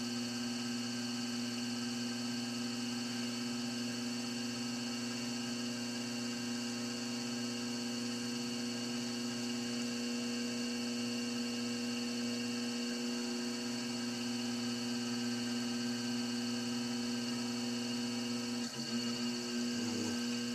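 Electric potter's wheel running with a steady hum as the wheel head spins.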